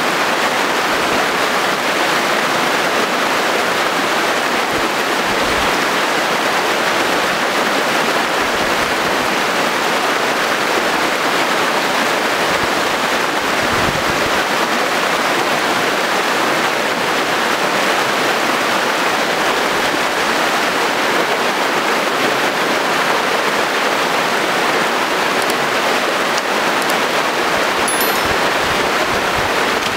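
River rapids rushing over rocks: a steady, loud wash of water with no break.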